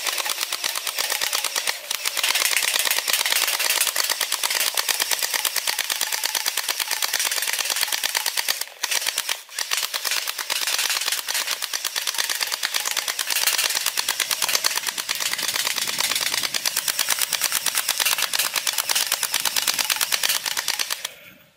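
Toy Thompson machine gun firing a fast, continuous rattle of clicks, with two brief breaks about nine seconds in.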